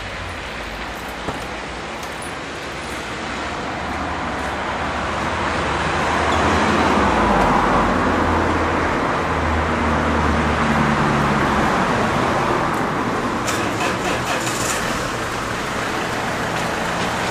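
Street traffic noise: a motor vehicle's engine and tyres grow louder over several seconds, hold, then fade away, over a steady hiss of road noise.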